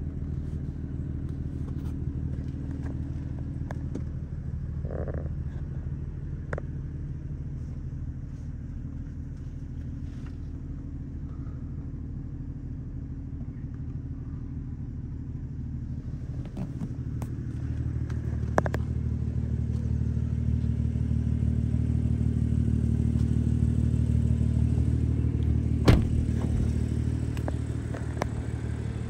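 A BMW M235i's turbocharged straight-six idling steadily, a low hum that grows louder for about ten seconds past the middle, then eases. A few light clicks and knocks sit over it, the sharpest near the end.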